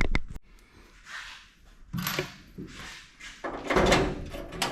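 Metal clicks, knocks and scraping as loose steel nuts are handled and held against a steel tool box lid to test their fit.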